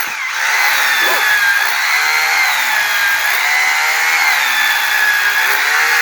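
Electric power tool running steadily under load, a high whine that wavers slightly in pitch over a dense hiss.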